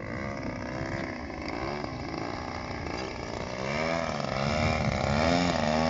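Radio-controlled model airplane's small engine running in flight, its pitch rising and falling over and over as the throttle changes and it passes, growing louder toward the end.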